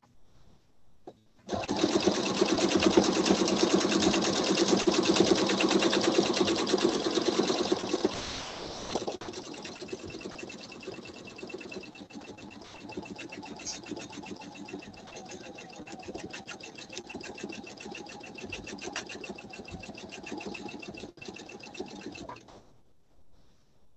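Pfaff sewing machine stitching in free-motion quilting, its needle running in a rapid, steady chatter as the quilt is moved by hand. It starts about a second and a half in, is loudest for the first several seconds, carries on more quietly, and stops shortly before the end.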